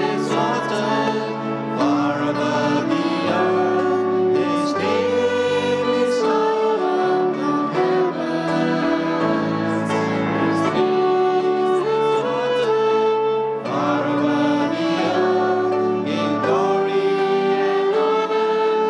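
A small group of singers singing a slow worship song to piano accompaniment.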